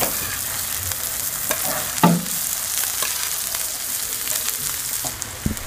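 Diced potatoes and chopped onions sizzling in hot oil on a large flat griddle, with a few knocks of the cooking utensil on the griddle, the loudest about two seconds in.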